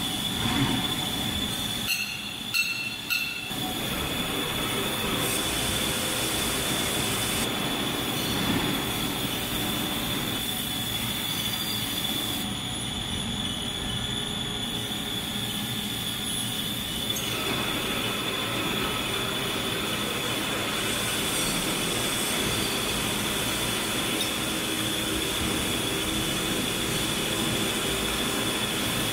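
Steady machine-shop noise of machinery running, with a constant high whine and a few metallic knocks about two to three seconds in.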